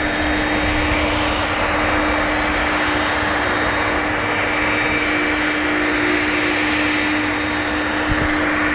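Airbus A300-600ST Beluga's General Electric CF6-80C2 turbofan engines running at taxi power as the aircraft taxis: a steady jet whine over a constant low hum.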